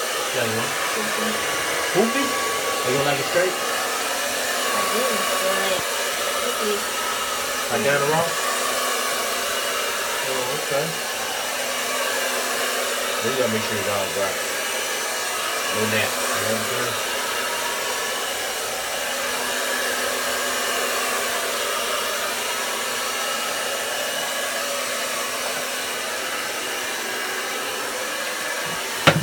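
Hand-held hair dryer blowing steadily as it is worked through long hair, with a sharp click near the end.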